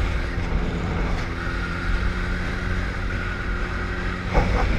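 Sport bike engine running at a steady cruise, its hum holding one pitch under heavy wind rush on the microphone. A brief knock or buffet comes near the end.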